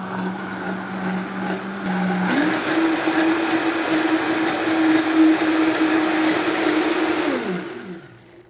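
Countertop blender running while oil is poured in through the lid to emulsify a smoked tomato dressing. Its motor pitch steps up about two seconds in, then winds down as it is switched off near the end.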